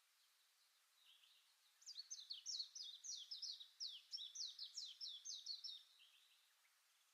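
A faint songbird song: a quick run of short, high, falling notes, about four or five a second, starting about two seconds in and lasting about four seconds.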